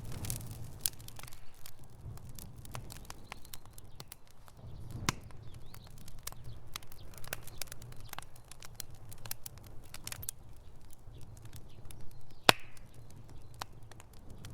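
Campfire crackling: burning wood gives frequent, irregular sharp pops and snaps over a low rumble from the fire. One pop is much louder, near the end.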